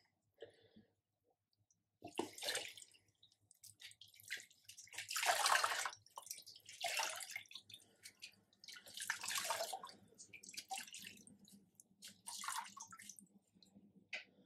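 Water streaming and splashing back into a plastic basin as soaked wool skeins are lifted out and squeezed by hand, in repeated bursts every couple of seconds, the biggest about five seconds in. The skeins are being wrung out of their pre-dye soak in water and vinegar.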